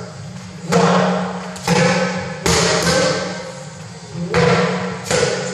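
Strikes landing on hand-held pads in a pad drill: about five sharp smacks of a gloved fist and knee against the pads, each echoing in the large hall.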